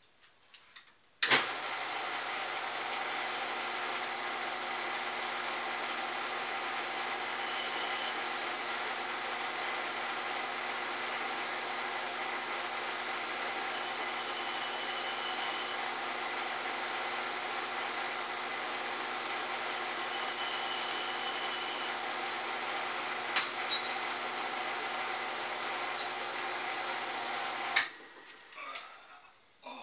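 A workshop power tool's electric motor switches on about a second in and runs steadily, then cuts off shortly before the end. Three times a higher-pitched sound rises over it for a second or two, and there are a couple of sharp clicks near the end.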